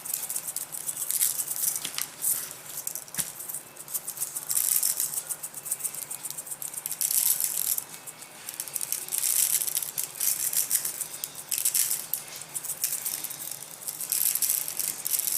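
McCormick Montreal Steak seasoning being shaken from its shaker bottle, the coarse granules rattling in bursts of quick shakes with short pauses between them.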